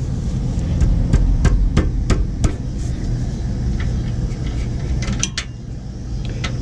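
Sharp metallic clicks and knocks from a wrench working the tight 18 mm rear brake caliper bracket bolts on a Chevy Avalanche: two or three a second for the first couple of seconds, then a short cluster near the end, over a steady low hum.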